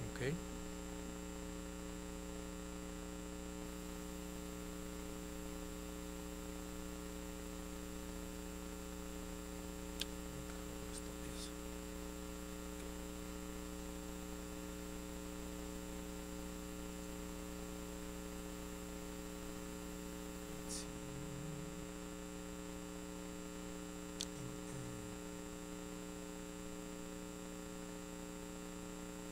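Steady electrical mains hum, with a few faint clicks scattered through it.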